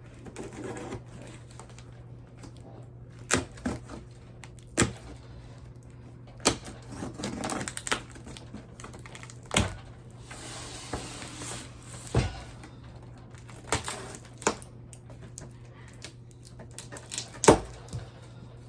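A large cardboard box being cut open by hand: scattered sharp knocks and clicks, the loudest near the end, with two short stretches of scraping noise in the middle.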